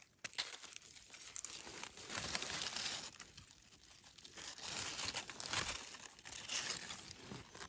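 Dry fallen leaves rustling and crackling as hands and a knife work through the leaf litter while mushrooms are cut and picked, in a few bouts with small clicks.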